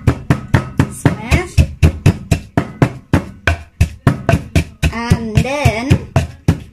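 Wooden pestle pounding chilli, garlic and ginger in a deep wooden Thai mortar (krok), a steady run of knocks about four a second. A voice sounds a few wavering notes over the pounding, about a second in and again around five seconds in.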